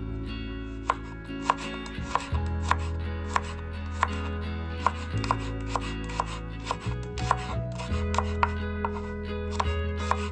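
Kitchen knife slicing garlic cloves on a wooden cutting board: a steady run of crisp knife strikes on the board, a little under two a second, with background music underneath.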